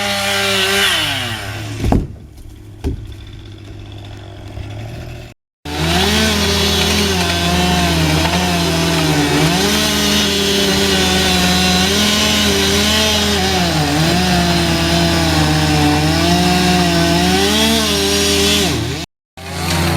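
Chainsaw cutting through wood, its engine pitch dipping and recovering as it bogs under load. About two seconds in it winds down to a quieter stretch, then it runs hard again cutting for most of the rest. A steady lower engine hum sits underneath.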